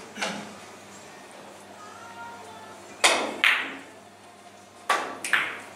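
Three-cushion carom billiard cue and balls: sharp clacks of the cue tip striking a ball and balls striking each other, each ringing briefly. One click comes just after the start, then two pairs of clacks about half a second apart, around three and five seconds in.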